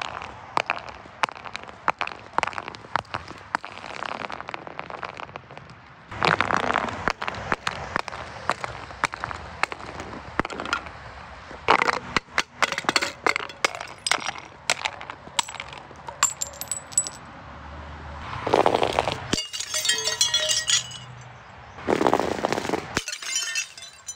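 A glass jar full of orange grains rolling and clunking down concrete steps in a long run of knocks and clinks, broken by several louder crashes. The jar shatters, and its grains spill with a hiss while glass shards clink.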